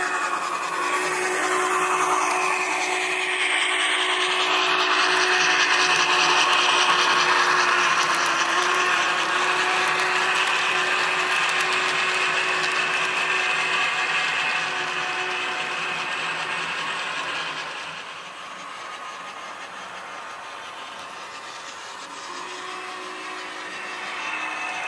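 HO-scale model train, an MTH Clinchfield Challenger steam locomotive with passenger cars, running past: a steady whirring of the motor and of wheels on the rails. It grows louder as the train passes and drops off sharply about 18 seconds in as it moves away.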